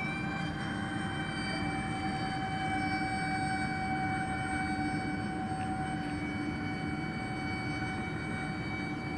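Electric ducted fans of a radio-controlled Airbus A330 model airliner in flight, giving a steady high-pitched whine over a rushing hiss.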